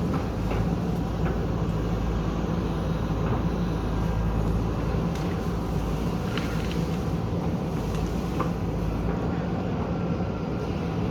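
Backhoe loader's diesel engine running at a steady, even note, with a few faint clicks and scrapes over it.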